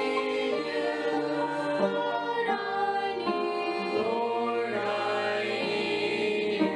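A small mixed group of five voices, a man with teenage girls and boys, singing a song together in several parts.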